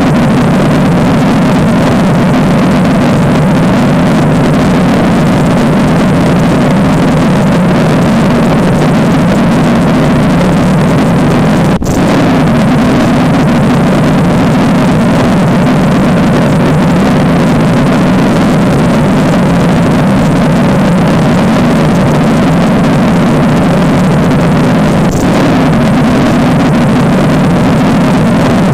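Loud, steady droning rumble, a creepy sound effect, with a brief break about every 13 seconds where the loop restarts.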